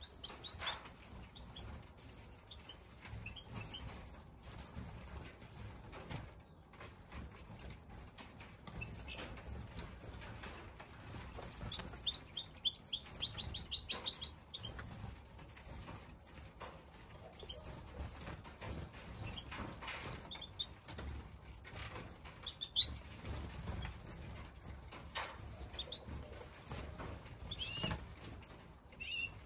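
European goldfinches giving short, high calls and fluttering their wings as they land on and feed from a tray of dandelions. About twelve seconds in there is a fast run of repeated twittering notes, and a little past twenty-two seconds one loud, sharp, rising call.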